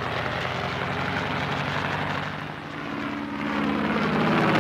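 Piston propeller aircraft engines droning on an old film soundtrack played over a loudspeaker. The engine note grows louder in the second half as a twin-engine aircraft flies toward the camera.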